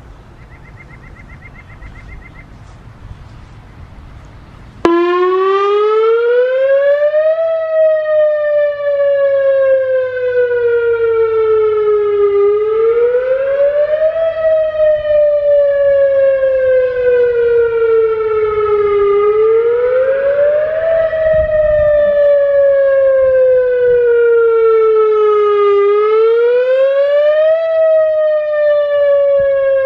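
Whelen WS-2000R electronic outdoor warning siren starting up suddenly about five seconds in, loud, its pitch rising quickly and then falling more slowly, the cycle repeating about every six and a half seconds.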